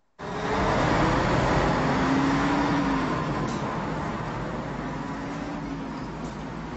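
Road vehicle noise: a car's steady rushing tyre and engine sound with a faint hum that glides a little in pitch. It comes in suddenly at the start and eases off gradually after about three seconds.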